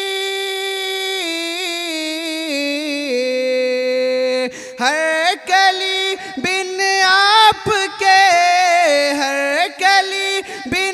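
A single voice singing a manqabat, a devotional praise poem, on a wordless stretch: a long held note that steps slowly downward, then from about four and a half seconds in, ornamented melismatic runs with gliding pitch.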